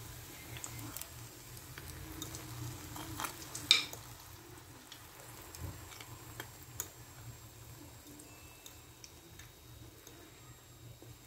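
Hot fried makrout being stirred in honey syrup with a metal utensil: soft wet stirring and scattered light clicks of metal against the dish, the sharpest nearly four seconds in, over a faint low hum.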